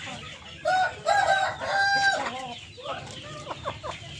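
Rooster crowing once, a loud call of about a second and a half that falls away at the end, followed by short clucking calls from chickens.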